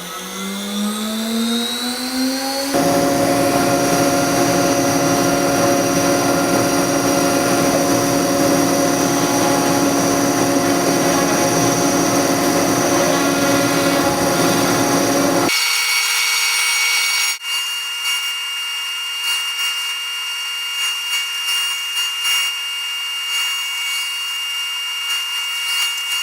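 CNC router spindle spinning up with a rising whine, then running steadily at speed. About fifteen seconds in the sound changes abruptly to a thinner, higher steady whine, with a sharp click a couple of seconds later.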